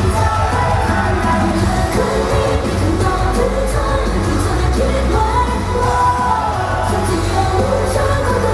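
Female idol vocalists singing a pop song into handheld microphones over loud amplified music with a heavy bass and steady drum beat.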